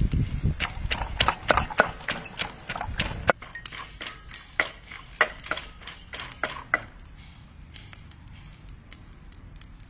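A pestle pounds garlic and chilies in a clay mortar, a run of heavy knocks about three a second. About three seconds in it gives way to lighter clinks of a spoon stirring a drink in a glass, which stop a few seconds later.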